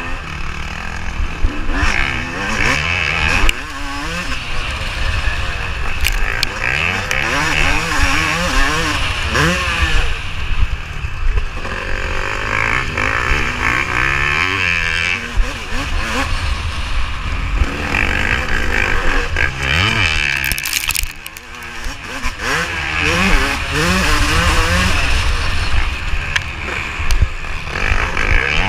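Yamaha YZ250 two-stroke motocross engine under hard riding, its revs climbing and dropping again and again through the corners, with a short easing of the throttle about two-thirds of the way through. Wind rush and short knocks from the rough track run underneath.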